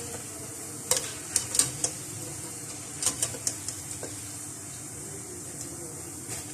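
Moong dal pakoras sizzling steadily in hot frying oil as a spoon lifts them out, knocking against the pan in quick clicks, in clusters about a second in and about three seconds in.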